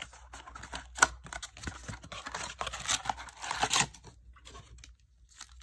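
Cardboard trading-card blaster box being torn open, with crinkling of its wrapping. A sharp snap comes about a second in, a dense run of tearing and rustling follows from about two to four seconds in, and then it dies down to faint ticks.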